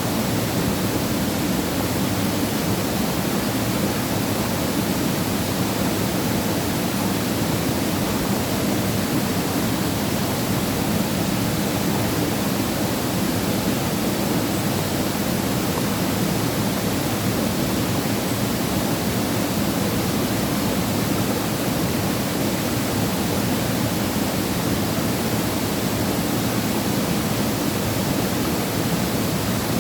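Waterfall pouring steadily into a mountain valley stream, an even, unbroken rush of falling water.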